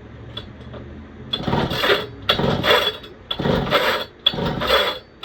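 A Pioneer P-41 chainsaw's recoil starter is pulled four times, about once a second, turning the engine over with the spark plug out to check for spark. Each pull is a short rasping whir.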